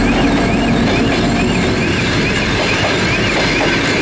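Passenger coaches of a locomotive-hauled train rolling past at speed, wheels clattering over the rail joints, with a low rumble that fades after about two seconds as the M62 diesel locomotive pulls away. A high wavering tone repeats about twice a second.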